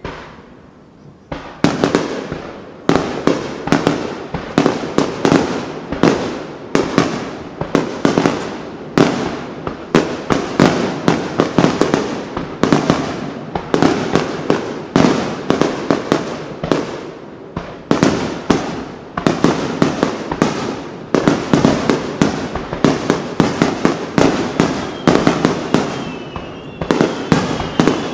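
Aerial firework shells bursting in a dense barrage, several loud bangs a second, starting about a second and a half in after a short lull. A faint whistle sounds near the end.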